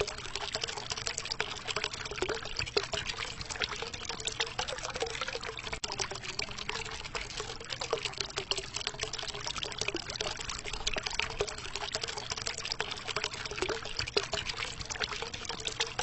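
Water fountain running: a steady stream of water pouring and splashing into a pool, with a trickling, bubbling note throughout.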